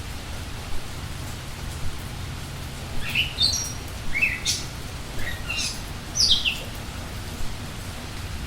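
Steady rain with a low rumble, and a songbird singing a run of quick chirps and short falling notes from about three seconds in.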